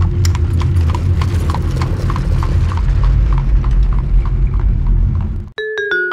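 Intro sound effect: a steady low rumble with an even clicking of about three clicks a second. It cuts off suddenly near the end, when plucked-string music begins.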